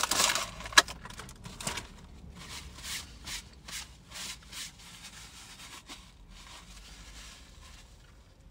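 Foil cookie wrapper and cardboard box rustling as the cookies are pushed back into the packet, with a sharp click under a second in. Softer rubbing and rustling strokes follow and fade away.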